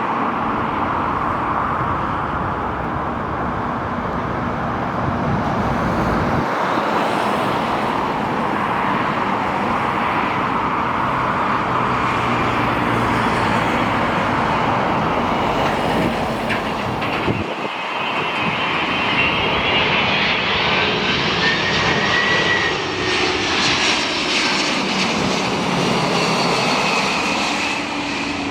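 Jet airliner's engines passing close by: a steady loud rush, joined in the second half by a high whine that bends up and down in pitch.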